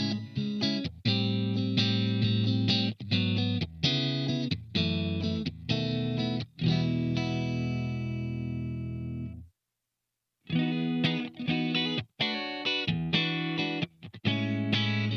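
SLX Hawk Classic 22 HSS electric guitar with Alnico V HSS pickups, played through an amp with some distortion: choppy chords and short riffs with quick stops. About seven seconds in, one chord rings out and fades, then cuts off for about a second of silence before the playing starts again.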